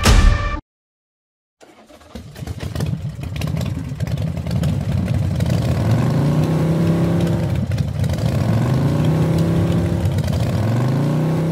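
Small motorcycle engine starting up and pulling away, its pitch climbing and dropping back several times as it accelerates through the gears.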